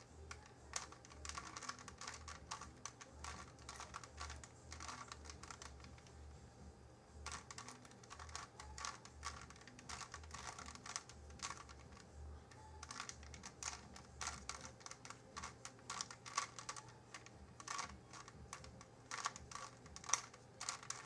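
Rubik's Cube layers being twisted by hand: quick, irregular runs of plastic clicking and clacking, with a brief lull about five seconds in.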